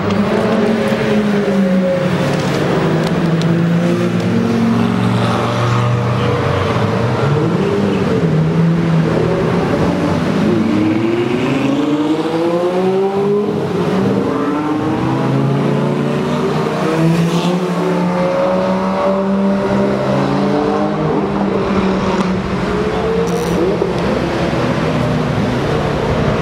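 A procession of Lamborghini sports cars driving past one after another, their loud engine notes overlapping and rising and falling as each car revs and passes.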